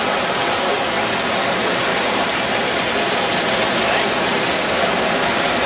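Electric model train running along the layout's track, a steady, unbroken rolling noise.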